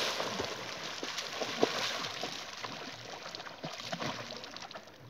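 A man swimming through lake water, his arms and body splashing and sloshing; the splashing is loudest at first and fades as he moves off.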